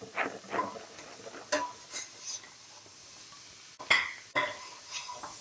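A utensil stirring sauteing vegetables in a metal pot, clinking and knocking against it: a string of separate clinks, several with a short ringing tone, the two loudest knocks close together about four seconds in.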